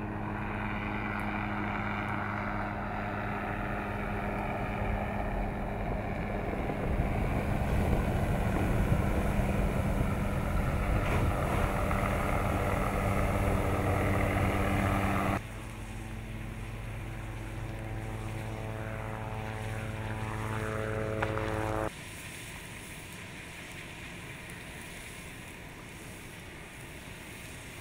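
Steady aircraft engine drone, cut off abruptly twice, and quieter after the second cut.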